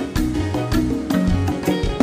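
Upbeat dance music with a steady, quick beat and a moving bass line.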